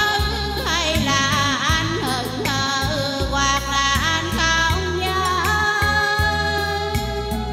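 Woman singing a slow song into a microphone, her held notes wavering with vibrato, over backing music with a bass line and a steady light beat.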